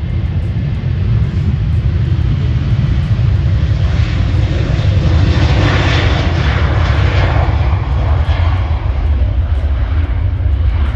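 Jet airliner engines: a heavy, steady low rumble with a broad roar that swells to its loudest around the middle and then fades, as the plane passes.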